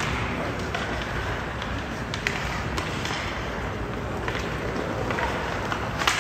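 Ice hockey play: skates scraping and hissing on the ice, with a few sharp clacks of sticks and puck, the loudest a crack near the end.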